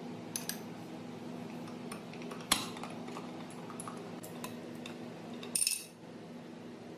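Metal parts clinking and knocking as they are handled, with a sharp strike about two and a half seconds in and a short ringing rattle near the end, over a steady low hum.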